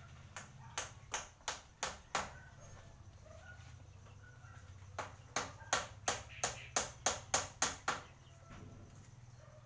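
Hammer blows on a bamboo slat panel: a run of about five sharp strikes, a pause of about three seconds, then about nine quicker strikes.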